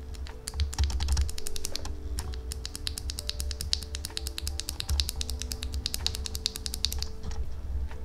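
Fast typing on a CIDOO ABM084 keyboard with its stock Gateron Yellow linear switches and Cherry-profile PBT keycaps: a dense run of key clacks that stops about a second before the end. It is heard over background music.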